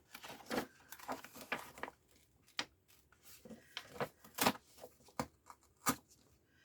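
Paper crackling and rustling as a glued book signature is pulled apart from the next one at the spine, in a series of short irregular crackles, the loudest about four and a half seconds in.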